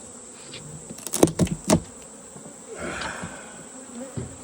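Honeybees buzzing around an opened hive, with a quick run of four sharp knocks about a second in and a brief scraping sound in the middle.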